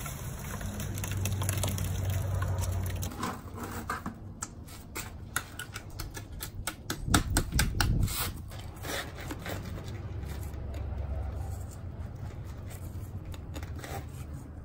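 Thick wet refractory mix sliding out of a plastic bucket into a metal pail. This is followed by a run of quick scrapes and knocks, mostly in the middle seconds, as the bucket is emptied and handled.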